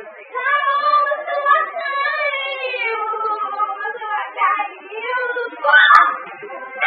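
A girl's high voice in long, wavering, sing-song notes, with a short louder noisy burst about six seconds in.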